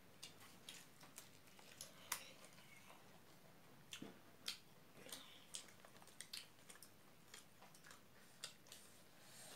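Faint, scattered small clicks and smacks of people eating rice with their hands: chewing, and fingers mixing rice on the plates.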